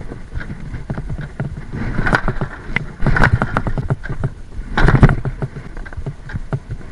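Balkan 50's 50 cc two-stroke engine being kicked over again and again without catching: a few short bursts of cranking a second or two apart, the loudest about five seconds in. It refuses to start.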